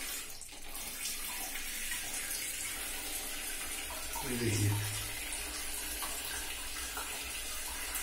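Water running steadily from an instant electric water-heater tap and splashing onto a tiled floor and into a plastic bucket.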